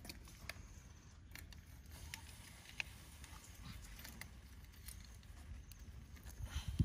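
Quiet outdoor background: a steady low rumble with scattered light clicks and ticks.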